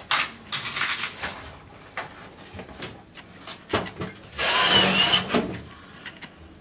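Shower cabin's frame and glass panels being handled and fitted: scattered clicks and knocks, and a louder scraping noise lasting about a second, around four and a half seconds in.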